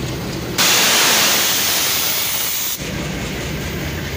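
Diesel locomotive idling with a steady low rumble. About half a second in, a loud hiss of compressed air blows off from the locomotive's air system for about two seconds and cuts off suddenly.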